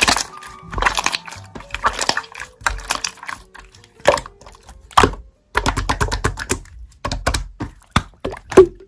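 Slime being pressed and stretched by hand, making a quick, irregular run of crisp clicks and pops, over soft background music.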